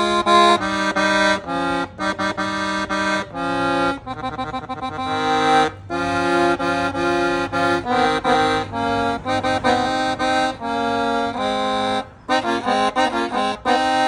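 Five-register accordion played on its bassoon register, the low reed set alone, playing a tune in separate notes and chords with short breaks between phrases and a brief pause about twelve seconds in.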